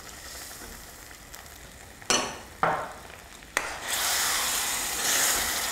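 Steel ladle in a kadhai of halwa: three sharp knocks against the pan, then from about four seconds in a steady sizzle as the roasted chana dal and mawa, with milk and sugar just added, are stirred over the heat.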